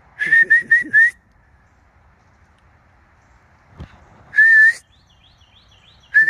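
A person whistling to call a horse: a quick run of four short, high notes, then a single longer wavering note, then another quick run of short notes near the end.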